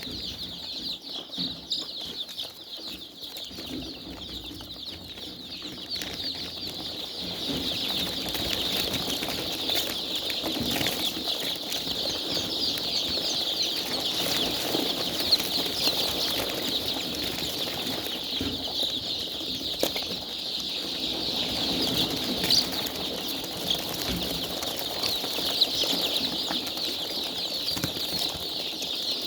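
A flock of chickens in a poultry house, a dense, continuous chorus of overlapping high-pitched calls that grows louder about seven seconds in.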